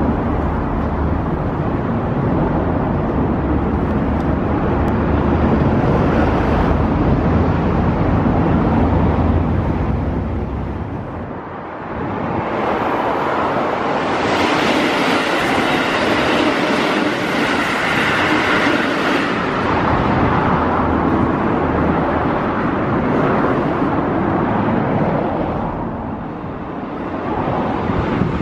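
Keikyu Line trains running past a level crossing whose warning signal is active: a continuous rumble of train and rail noise that swells and eases. There is a lull about eleven seconds in and another near the end.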